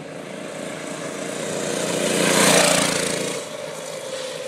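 200cc Doodlebug minibike's single-cylinder engine running at high revs as it passes by: it grows steadily louder, peaks about two and a half seconds in, then fades away.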